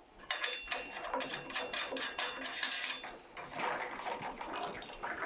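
Hand wheels being screwed onto the threaded rods to secure a bed side rail, with a steady run of small clicks, rattles and scrapes from the rail's metal fittings being handled.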